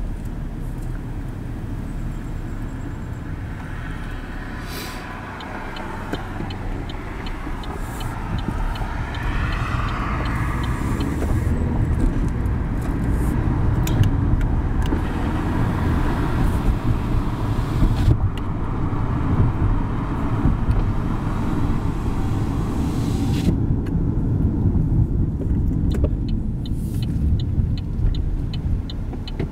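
Car cabin noise while driving: a steady low engine and tyre rumble that grows louder as the car gathers speed. Twice a light, even ticking runs for a few seconds.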